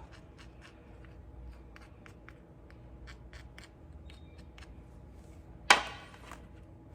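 Small hand-work noises while greasing a brake caliper slide pin: a string of light clicks and taps, then a single short, loud scuffing noise near the end.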